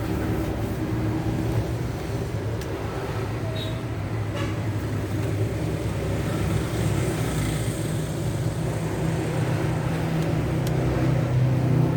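Steady low hum of a running engine or motor, with a few faint clicks on top.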